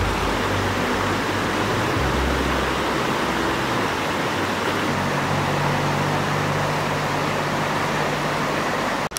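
Shallow stream running fast over flat rock in small rapids: a steady rushing of water that cuts off suddenly just before the end.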